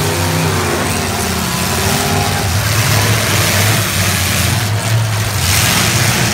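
Demolition derby cars' engines running and revving in the arena, with a rush of noise that swells about five and a half seconds in.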